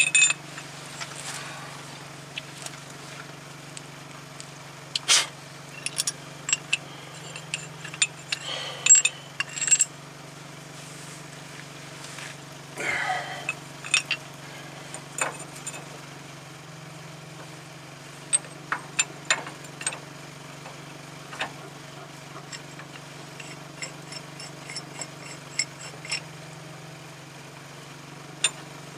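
Scattered metal clinks and taps as the steel forcing screw and adapter cups of a C-frame ball joint press are handled and fitted around a ball joint, over a steady low hum.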